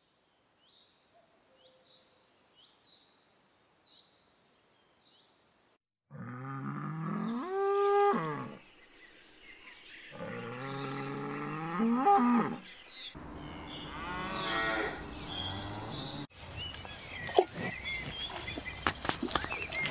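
A cow mooing: two long, loud moos, each rising in pitch at its end, then a third call over a noisier background. Near the end come rustling and crackling clicks from an armadillo rooting through dry leaf litter.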